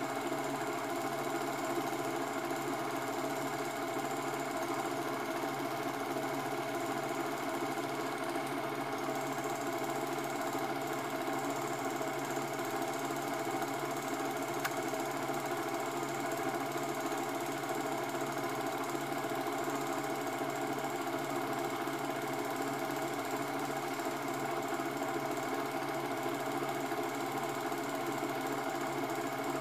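Cine film projector running with a steady mechanical whirr, the only sound on a silent home movie as it was transferred.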